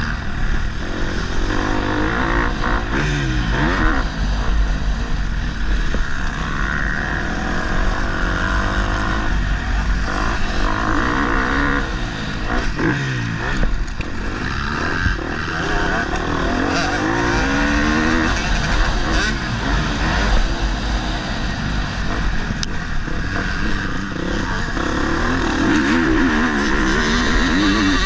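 Motocross motorcycle engine revving hard and easing off over and over as it is ridden around the track, its pitch climbing and dropping every second or two over a steady low rumble.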